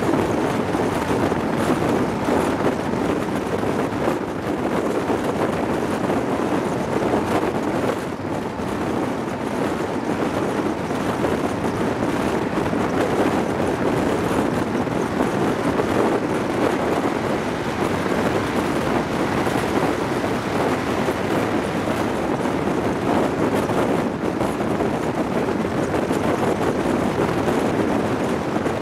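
Steady rush of wind over a microphone held out of the window of a moving High Speed Train carriage, mixed with the train's running noise on the track.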